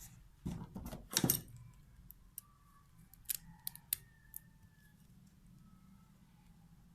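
Faint handling noises of a power adapter's wire leads being connected to a small electronics circuit: a scraping rustle about half a second to a second and a half in, then a few short, sharp small clicks.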